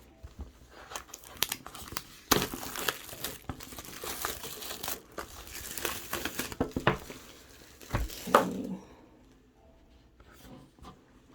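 Packaging of a boxed DVD set being handled and unwrapped: crinkly rustling and tearing with many sharp clicks from about two seconds in to about seven, then a single thump around eight seconds.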